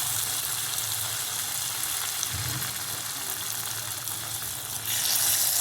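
Potato snack pieces coated in cornflour batter sizzling as they deep-fry in oil on a low flame; the sizzle grows louder near the end.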